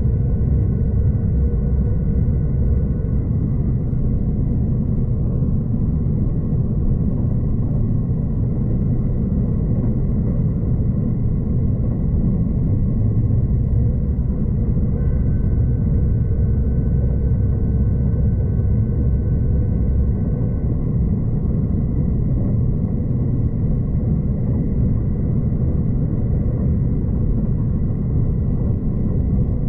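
Steady low rumble of a V/Line passenger train running along the track, heard inside the carriage. A faint high whine holds for a few seconds just past the middle.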